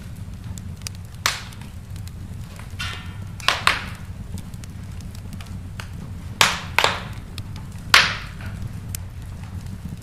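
Wood fire crackling in a fireplace: a steady low rumble with faint ticks and about six sharp pops, the loudest about eight seconds in.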